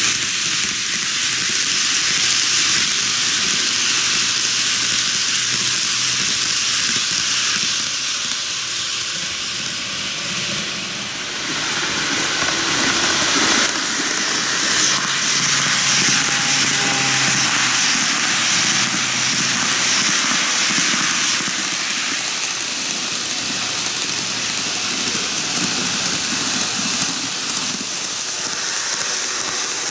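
TOMIX N-gauge model electric trains running on curved cant track: a steady hissing running noise of small motors, gears and metal wheels on the rails.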